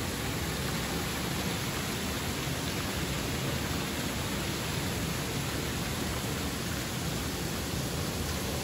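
Steady hiss of water jets spraying and splashing onto a children's splash-pool play structure.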